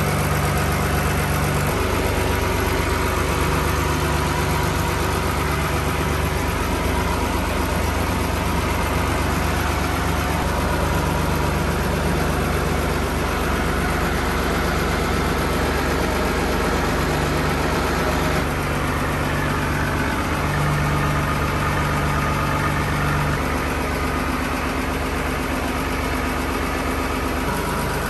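Yamaha inboard marine engine idling steadily, heard up close in the engine room; the engine has run less than 500 hours since its overhaul.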